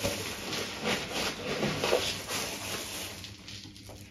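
Dry feed grain being scooped and poured into a bucket, an irregular rustling hiss.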